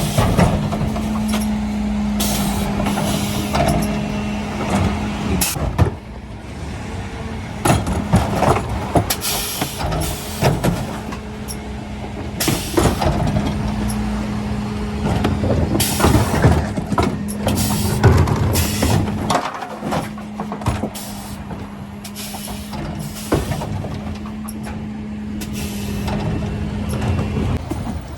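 Mercedes Econic refuse truck with a Faun Variopress body and Zöller bin lifters working: a steady hum from the truck that drops away after about five seconds and returns about halfway through, with repeated sharp knocks and clatters throughout.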